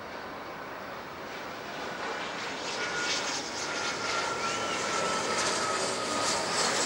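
Dassault Falcon 2000LX business jet on final approach, its twin Pratt & Whitney Canada PW308C turbofans growing louder from about two seconds in as it nears, with a thin engine whine slowly falling in pitch.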